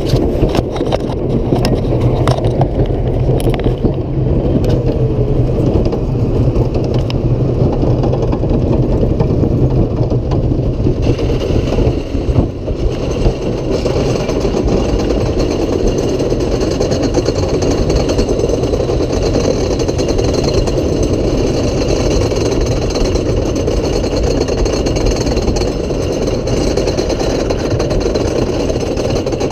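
Wooden roller coaster train rolling out of the station and climbing its chain lift hill, recorded from the back seat: a steady, loud mechanical rumble with a few sharp clicks near the start. A thin, steady high whine joins about eleven seconds in.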